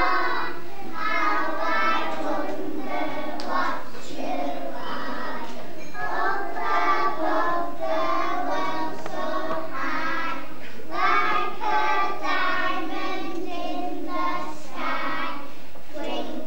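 A group of young children singing a nursery rhyme together in unison.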